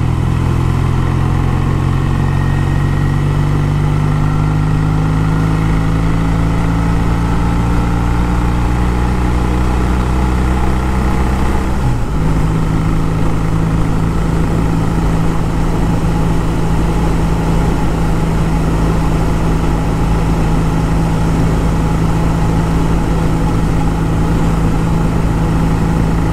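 1956 Triumph T110's 650 cc parallel-twin engine running under way, its note slowly rising as the bike picks up speed. About halfway through, the engine note changes abruptly, then holds steady.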